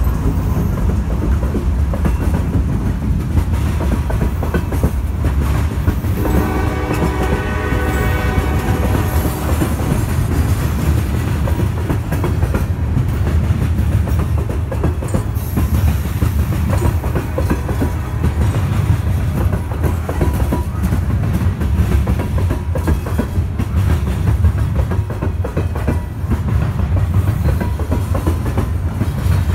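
Norfolk Southern coal train's coal cars rolling past close by: a steady low rumble with the clack of wheels over the rail joints. About six seconds in, a train horn sounds for about three seconds.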